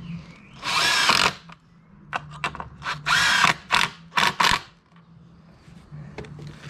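Cordless drill/driver driving screws into wooden pergola timbers in three short bursts, the longest lasting under a second, with a few light clicks between them.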